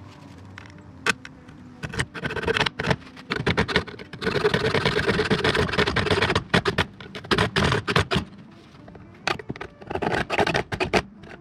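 Hacksaw cutting through the corner of a metal checker plate in rapid back-and-forth strokes, with a longer run of continuous sawing a few seconds in.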